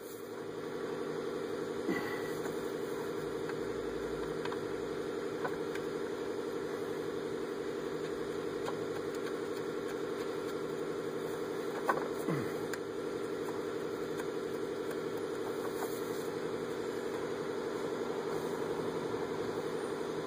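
A steady motor hum, even in pitch, with a couple of light clicks.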